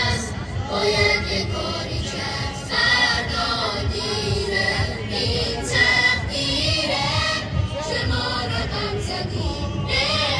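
A group of voices singing a slow, melodic mourning chant (noha) over a loudspeaker system.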